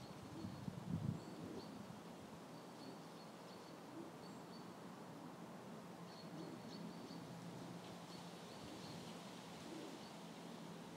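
Faint outdoor ambience: short high chirps recur every second or so over a steady low hum, with a few soft low thumps about a second in.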